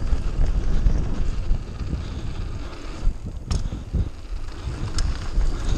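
Wind buffeting the microphone over the rumble of mountain bike tyres rolling fast on a gravel-strewn dirt trail, with a few sharp knocks and rattles from the bike over bumps.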